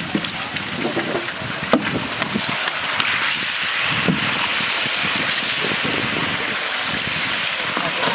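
Pieces of hilsa fish sliding off a metal pan and tumbling into a trough of chopped green papaya: a steady rushing, shuffling noise that grows louder about three seconds in, with a few sharp knocks.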